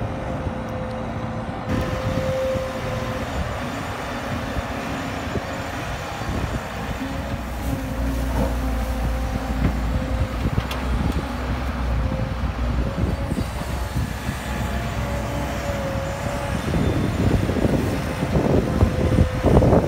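Caterpillar E120B hydraulic excavator running under load as it digs and swings, its diesel engine giving a steady low rumble with a thin steady whine over it. The rumble grows heavier for several seconds midway, and rougher bursts of noise come in near the end.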